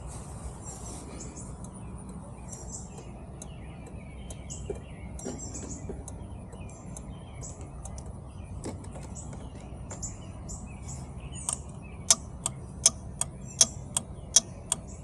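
Birds chirping in the background. About twelve seconds in, the scooter's signal-light flasher starts clicking steadily at close to three clicks a second: a little clicking noise.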